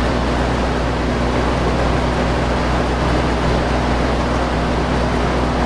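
Steady low mechanical hum of an idling vehicle engine under a constant rush of noise, unchanging throughout.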